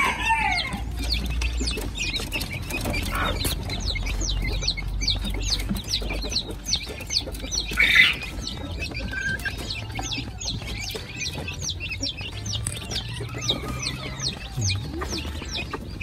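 Backyard poultry calling: a constant stream of short, high, falling peeps, with one louder call about eight seconds in.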